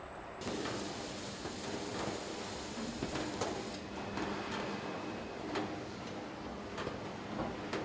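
Car assembly plant machinery running: a steady mechanical hum and hiss with frequent sharp clanks and clicks of tools and metal parts. It starts abruptly about half a second in.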